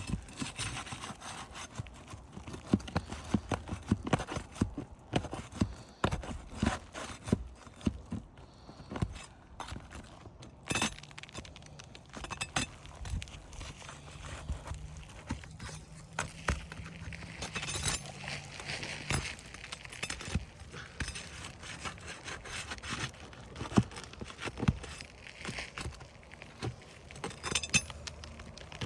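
A flat pry bar working under asphalt shingles to pull roofing nails: irregular metal knocks, taps and scrapes against the shingle and nails.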